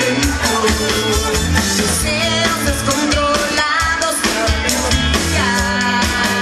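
Pop-rock band playing live on stage: drums, bass, guitar and keyboards with a woman singing, a steady driving beat.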